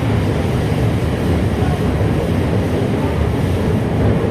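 Steady running noise heard inside a Toei 5300 series subway car in motion: a loud, even rumble of wheels on rail and the car body in the tunnel.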